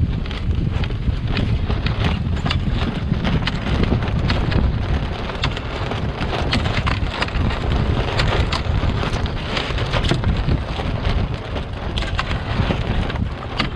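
Wind buffeting the microphone in a steady rush, with water splashing and rushing along the hull of a small open wooden sailing boat, a Drascombe Lugger, under way in a fresh breeze.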